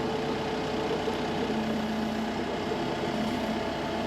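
Tractor engine running steadily at an even pitch while it works a tree-puller attachment, pulling a prickly ash up by its roots.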